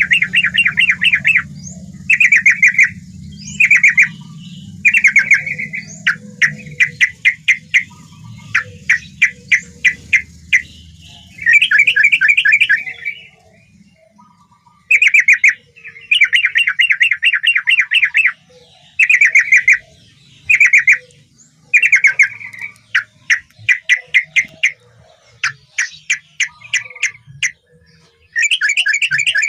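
Yellow-vented bulbul (trucukan) singing: loud phrases of rapid notes, each about a second long, repeated over and over with short pauses, over a low hum in the first half.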